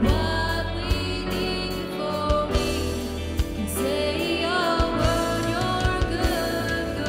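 Live worship band playing: electric guitars, keyboard and drums, with a woman singing the lead melody.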